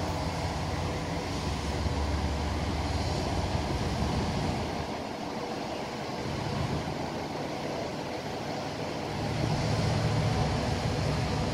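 Steady low vehicle rumble with a hiss over it, easing a little midway and swelling again near the end.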